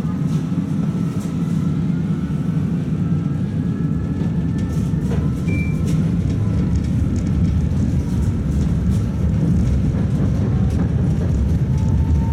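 Tatra T3 tram running on the rail, heard from inside the car as a dense, steady low rumble. Faint whines rise slowly in pitch over the first few seconds as it picks up speed, and a brief high tone sounds about halfway through.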